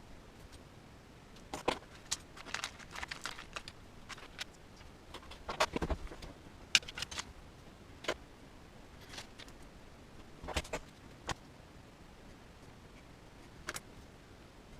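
Small plastic parts and hardware of a toy-sized RC winch being handled and fitted together by hand: scattered, irregular clicks and light rattles, in short clusters, the sharpest click about halfway.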